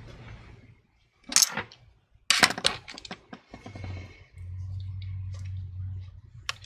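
Sharp clicks and taps of a small hand tool and fingers against an opened laptop's internals, the busiest cluster about two seconds in. A low steady hum runs through the second half.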